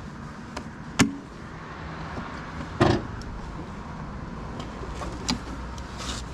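Low, steady vehicle rumble, broken by a sharp click about a second in and a louder knock near three seconds, with a few fainter clicks later.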